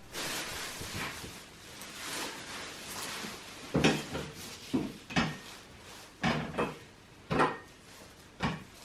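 Rustling of packaging being handled, then a string of short knocks and clatters about a second apart as hard parts are set down and moved.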